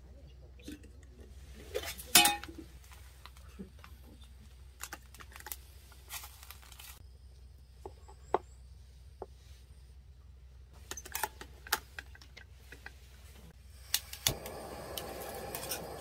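Metal clinks and knocks of an aluminium mess tin and its lid being handled and rice stirred in it, over a steady low hum, the sharpest clatter about two seconds in. About two seconds before the end, vegetables start to sizzle in a cast iron pot on the gas camping burner.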